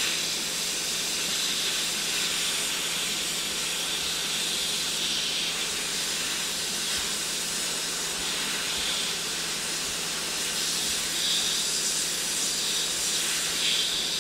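Hot air rework station blowing a steady hiss of air from its nozzle onto a circuit board, reflowing the solder under a chip.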